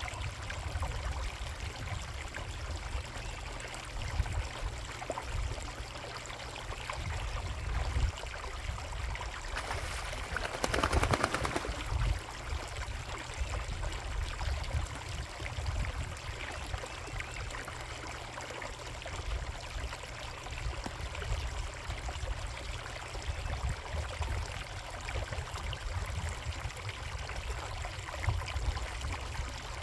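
Water running and trickling steadily at a koi pond, over a fluctuating low rumble. About ten seconds in comes a louder, brighter spell of rushing water lasting about two seconds.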